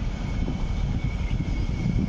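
A CRRC-built Phase 5 light rail vehicle running into a stop at low speed: a low rumble with a faint steady high whine over it.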